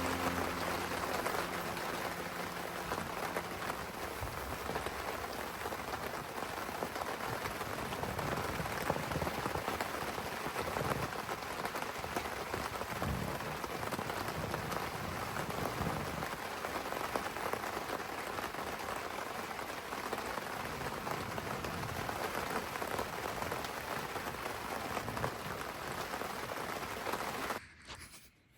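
Steady rain falling, a dense patter of drops; it cuts off abruptly near the end.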